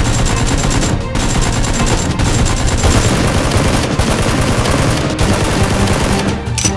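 Rapid automatic gunfire sound effects dubbed over Nerf blaster shooting: long bursts of closely packed shots with short breaks about once a second.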